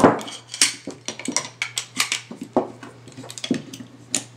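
Metal objects being handled and set down: irregular sharp clicks, clinks and knocks, a few a second, the loudest right at the start.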